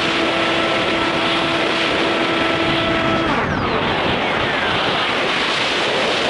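RC plane's motor and propeller whining steadily under heavy wind rush on the onboard microphone; about halfway the whine cuts off and a falling pitch trails away, leaving the wind noise as the plane dives with the throttle off.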